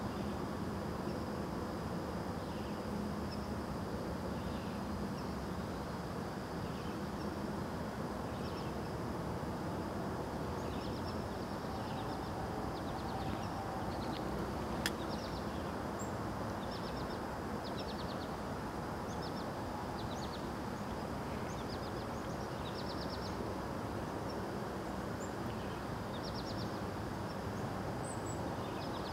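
Outdoor dawn ambience: a steady low background hum with a continuous high insect drone, and birds chirping in short trilled bursts, more often in the second half. A single sharp click about halfway through.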